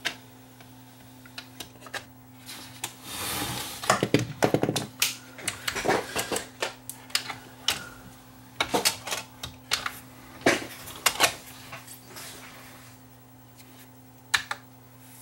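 NAD 5320 CD player's disc mechanism clicking and rattling in irregular bursts while it tries to read a disc, over a steady low hum. It is the sign of the player mistracking, a fault the owner traces to interference from his nearby AM transmitter.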